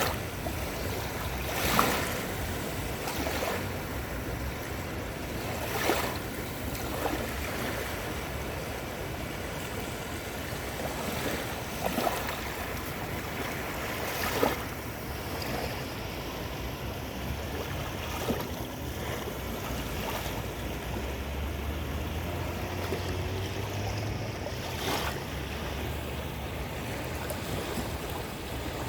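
Caspian Sea surf washing onto the shore: a steady hiss of water with sharper wave splashes breaking every few seconds.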